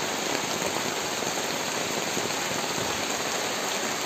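Heavy rain falling steadily, a dense even hiss, heard from under a tarpaulin shelter.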